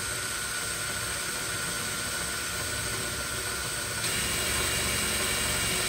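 Cordless drill running steadily as a twist bit bores into a wooden block, a constant motor whine with drilling noise. About four seconds in, the whine changes pitch and gets slightly louder.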